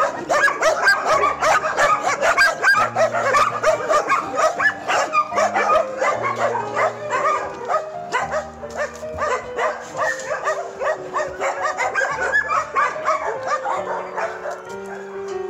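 Many dogs barking and yelping at once in a dense, continuous chorus, over background music with held low notes.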